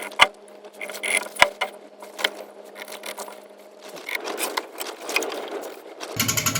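Scattered wooden clicks and knocks, as of wood and tools being handled at a workbench, over a faint hum that stops partway through. Near the end a power tool starts up with a loud, fast, even chatter.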